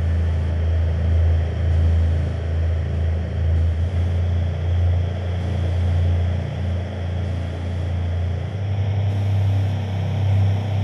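A deep, steady rumbling drone played loud over a club sound system, with a hiss above it.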